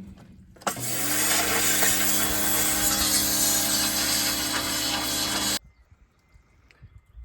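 Pressure washer spraying, a loud steady hiss over the hum of its running motor and pump. It starts abruptly about a second in and cuts off suddenly at about five and a half seconds, as the trigger is released.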